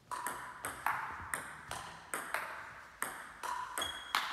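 Table tennis rally: the celluloid-type ball clicking off the table and the two bats in quick alternation, about two to three hits a second, one bat faced with Spinlord Hai long-pimple rubber. Each hit echoes briefly in the sports hall.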